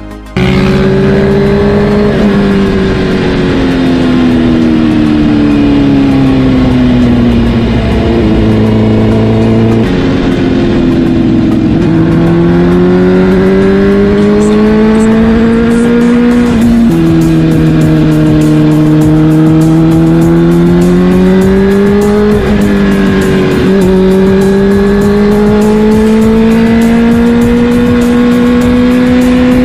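Suzuki GSX-R sport bike's inline-four engine, recorded on board while riding. The engine note climbs and falls with the throttle, with sudden drops in pitch at gear changes.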